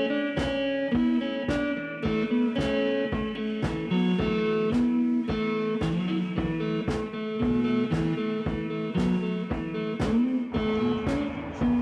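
Background music: a blues-style guitar piece with a steady beat.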